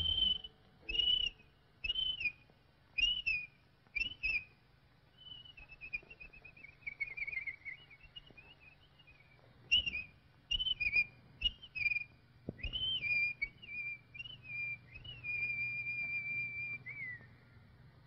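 Cartoon bird's whistled calls: short rising-and-falling whistles about once a second, then a warbling run that falls in pitch, more short whistles, and near the end one long held whistle that drops off.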